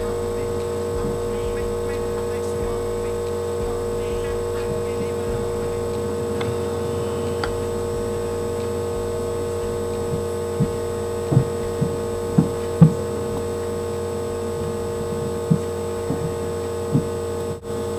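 Steady electrical mains hum made of several fixed tones, constant in level. Over the second half come a few short soft taps.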